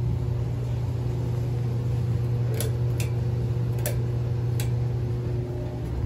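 Furnace blower running with a steady low hum, with four short sharp clicks about halfway through.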